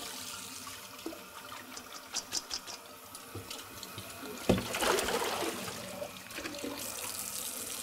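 Kitchen faucet running into a plastic bowl in the sink. About halfway through comes a knock and a louder gush as the bowl of used rinse water is tipped out into the sink to change the water, with the tap still running.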